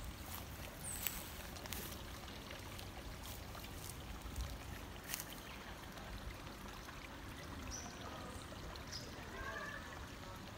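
Steady, low outdoor ambience at a flooded pond: an even hiss of trickling water with light rumble, a few soft clicks in the first half and brief high chirps near the end.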